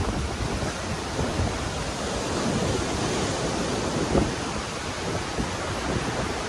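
Steady rushing of strong stormy wind, with a low rumble where the wind buffets the microphone.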